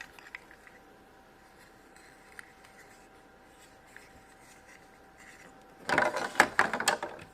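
Small plastic MagiClip doll and clip-on dress being handled: scattered light clicks and rubbing, then a burst of louder clicking and rustling about six seconds in.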